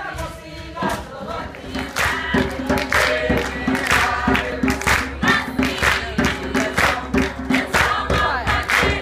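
A South African youth choir singing together in harmony, with a steady percussive beat about twice a second coming in about two seconds in.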